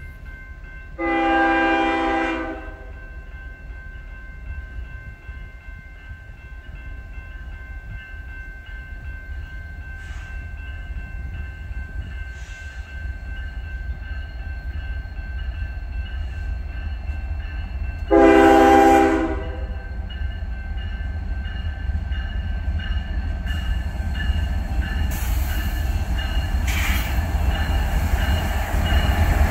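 Norfolk Southern diesel freight locomotive approaching, its low engine rumble building steadily. Its air horn gives two single blasts of about a second and a half each, one about a second in and another about eighteen seconds in. Wheel and rail noise rises near the end as the locomotives draw close.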